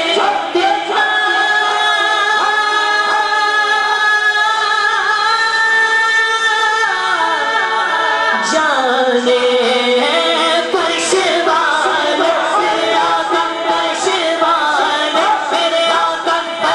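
A man singing a naat, an Urdu devotional praise poem, into a microphone. He holds long drawn-out notes, and one slides slowly down in pitch midway through.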